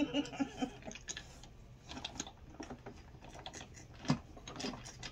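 Small plastic-packaged cosmetics handled and sorted in a cardboard box: a run of light plastic clicks and rustles, one a little louder about four seconds in.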